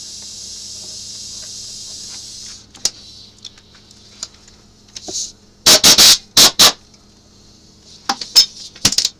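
Metal tool taps on the engine's steel bolt lock tabs, straightening them before the cam sprocket bolts come off: scattered light clicks and a quick run of about four loud, sharp strikes around the middle. A steady high hiss runs for the first two and a half seconds and then stops.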